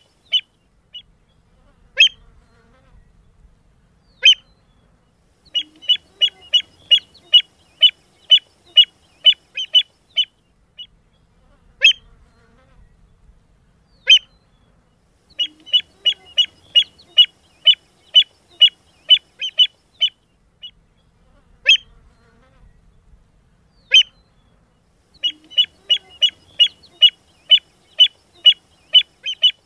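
Sharp, high bird calls: runs of about a dozen quick notes at nearly three a second, with single calls between the runs. The whole pattern repeats about every ten seconds.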